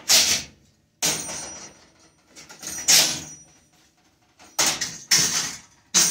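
Electric stove's coil burner elements and metal drip pans being unplugged, lifted out and set down. There are several separate metallic clatters and scrapes, about six in all, each cutting off sharply.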